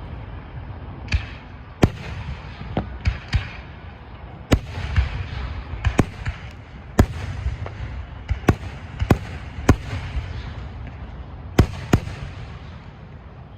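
Fireworks exploding: a string of sharp booms at irregular intervals, some followed by crackling, over a steady low rumble, thinning out near the end.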